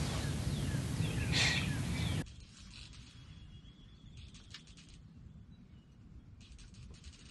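Songbirds chirping and calling over a steady outdoor hiss. About two seconds in, the sound drops suddenly to a much quieter background with a few faint high bird calls.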